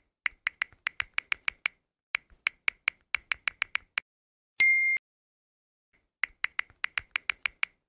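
Touchscreen keyboard key clicks on a phone as a WhatsApp message is typed, in quick runs of about six clicks a second. A short high beep sounds about four and a half seconds in, as a reply message arrives.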